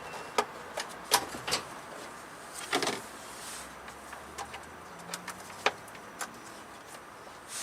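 Scattered sharp clicks and knocks of metal parts and tools being handled, with a longer scraping clatter about three seconds in.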